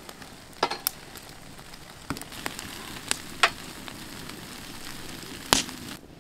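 Foil-wrapped fish grilling on a wire grate over an open wood fire: a steady sizzling hiss with sharp crackles and pops from the burning wood, about six of them, the loudest about five and a half seconds in.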